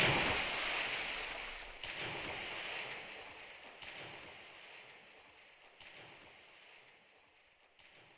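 Rushing water noise starts suddenly, then fades away over several seconds, with softer swells about every two seconds, like small waves washing.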